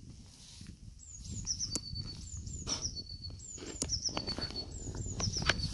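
A small songbird singing the same short phrase about four times, each a quick run of falling high notes ending on a brief held note. A few sharp clicks and a low rumble lie underneath.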